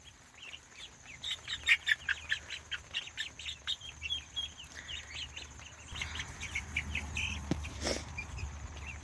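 A brood of young meat-bird chicks and ducklings peeping: many short, high chirps running on without a break. There is one sharp click about eight seconds in.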